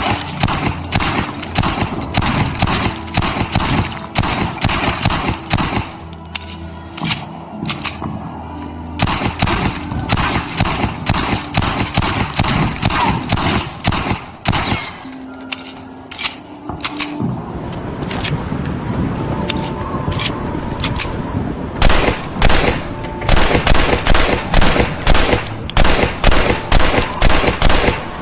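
Mauser C96 Model 712 machine pistol firing: rapid automatic bursts through roughly the first half, then single shots spaced apart near the end.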